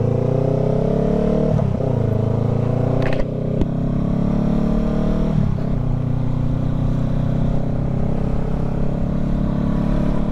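Honda CBR500R's parallel-twin engine pulling away: it rises in pitch, drops as it shifts up about a second and a half in and again about five seconds in, then runs steadily. A short click sounds about three seconds in.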